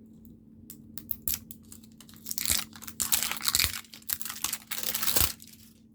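Sealed plastic egg packaging being pried and torn open by hand: scattered clicks, then about three seconds of crackling and tearing with a few sharp knocks, stopping just before the end.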